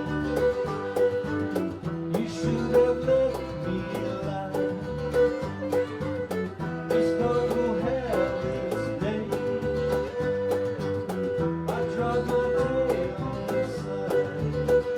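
Live country-bluegrass band playing: acoustic guitars, fiddle, bass and percussion, with a steady beat of regular strikes and sustained, sometimes sliding, melody notes.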